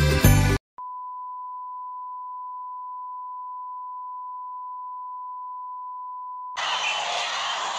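TV test-card tone: one steady beep at a single pitch, held for about six seconds. Music cuts off just before it starts, and near the end it gives way abruptly to louder noise.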